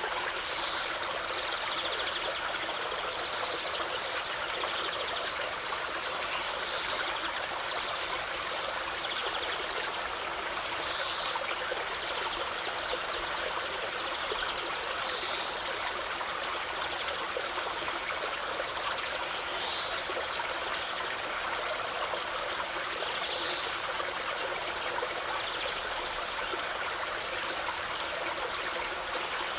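River water flowing and rushing over stones in a steady, unbroken stream, with a few faint short high-pitched sounds now and then.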